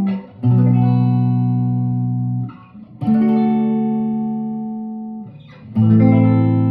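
1958 Guild Aristocrat guitar playing three chords, each struck sharply and left to ring and fade for about two seconds before the next.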